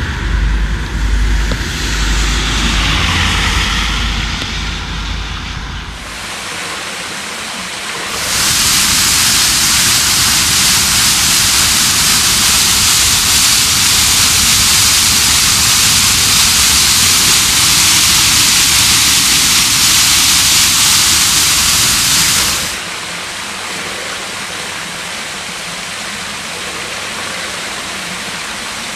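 Heavy rain on a flooded road with a low traffic rumble for the first few seconds, then the loud, steady rush of an open culvert stream in spate with storm runoff. About three-quarters of the way through it cuts to a quieter, steady pouring of water.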